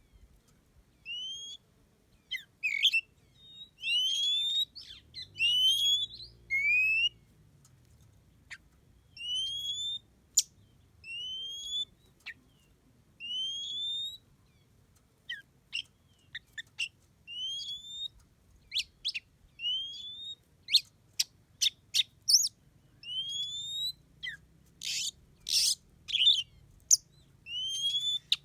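A songbird calling: repeated short whistled notes that each slide upward, spaced about a second or so apart, joined in the last third by quick sharp chips that come more and more often toward the end.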